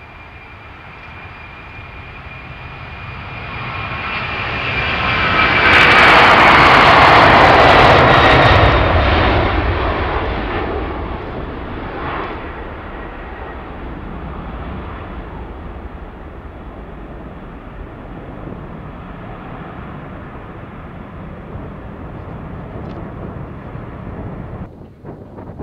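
Boeing 747-400's four jet engines at takeoff power as the jet accelerates down the runway and climbs away. The noise builds to its loudest about six to nine seconds in as the jet passes, with a high fan whine sliding down in pitch, then slowly fades as it climbs out.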